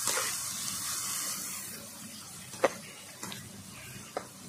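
Onion and spice masala sizzling in hot oil in a kadai as it is fried down, the hiss fading after the first second or so. A metal spatula clicks and scrapes against the pan three times, loudest about two and a half seconds in.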